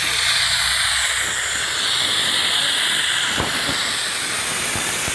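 Pneumatic oil extractor hissing steadily as compressed air rushes through it, drawing used engine oil from the car into its see-through collection chamber. A few faint clicks sound about three and a half seconds in.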